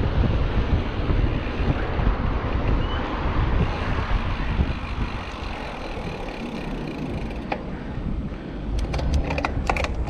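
Wind buffeting the microphone of a camera on a moving bicycle, over a steady rumble of road noise. A short run of sharp clicks comes near the end.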